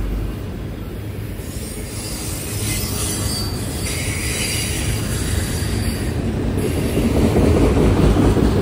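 Loaded autorack freight cars rolling past: a steady rumble of steel wheels on the rails, with a higher metallic hiss for a few seconds in the middle, getting louder near the end.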